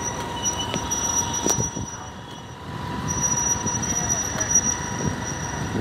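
Outdoor urban ambience: a steady wash of traffic and people in a busy plaza, with a faint thin high tone, briefly quieter about two seconds in.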